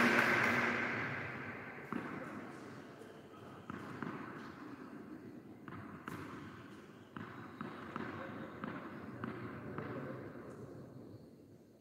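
Tennis ball bounced on a hard court before a serve: a handful of sharp, irregularly spaced bounces. A wash of noise dies away in the first second.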